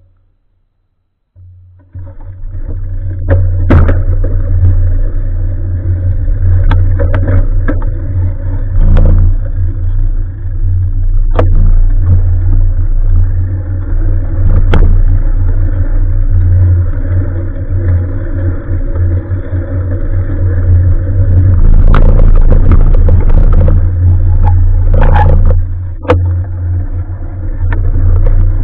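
Loud wind buffeting and road rumble on a bike-mounted action camera's microphone during a ride, starting about two seconds in, with frequent sharp knocks and rattles from bumps.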